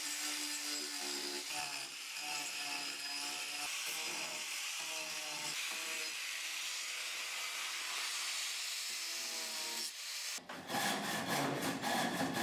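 Angle grinder with a sanding disc abrading a log, a steady hissing grind with the motor's whine. About ten seconds in it gives way to a handsaw cutting wood in quick, regular strokes.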